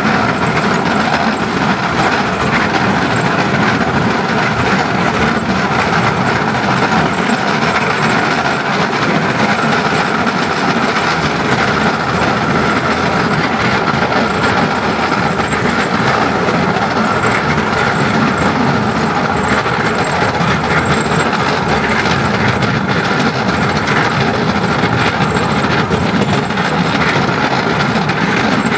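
10¼-inch gauge steam train running steadily along the track, a continuous mix of wheel-on-rail noise and locomotive running sound.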